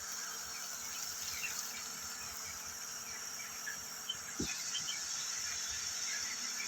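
Steady high-pitched chirring of crickets, thinning a little about four seconds in, with scattered faint short chirps and one dull thump about four and a half seconds in.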